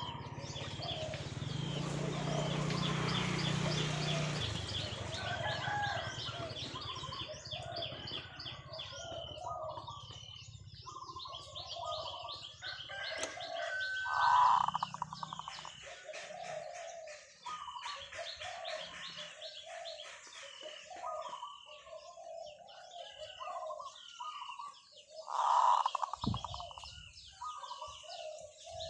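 Zebra dove cooing at length: quick rolling coos repeated over and over, with small birds chirping high above. Two louder calls stand out, about fourteen seconds in and again near the end.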